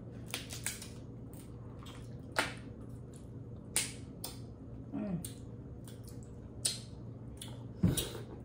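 Close-up eating of a Cajun seafood boil: scattered sharp cracks and wet squishes as crab shells are broken and the meat is chewed, the loudest crack near the end, over a steady low hum.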